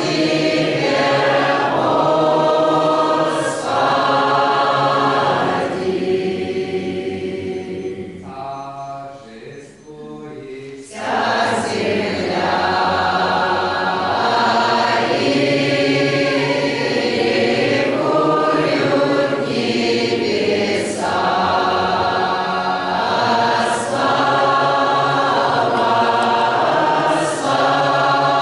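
Doukhobor choir singing a hymn in Russian, unaccompanied, many voices in harmony. The singing thins to a quieter lull about eight seconds in, and the full choir comes back in about three seconds later.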